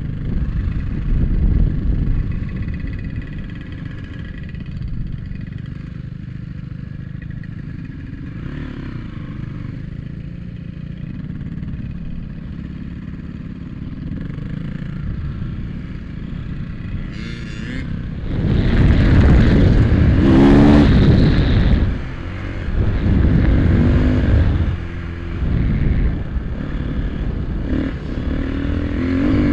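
Dirt bike engine running while riding on sand trails, mostly at a steady throttle, then getting louder in several surges through the second half as the throttle is opened.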